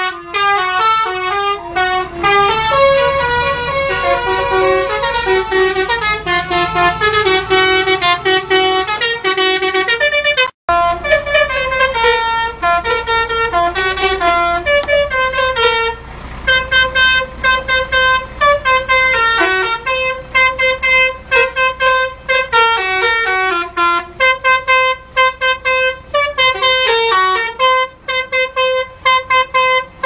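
Telolet basuri bus horn, a multi-trumpet air horn, playing quick melodies note by note, each note a clear pitched tone. The tune breaks off about ten seconds in and again at sixteen seconds, where another horn melody starts.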